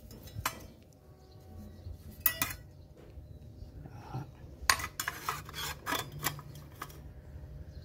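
Steel circular-saw blade clinking and scraping against the metal arbor and blade guard of a handheld circular saw as it is fitted into place. There are a few separate clinks, then a quick run of clinks and rattles about five to six seconds in as the blade is seated.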